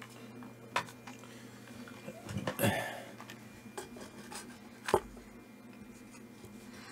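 Handling noise of a circuit board and a desoldering gun: a click a little under a second in, rubbing and scraping around two and a half seconds in, and a sharp knock about five seconds in, over a faint steady low hum.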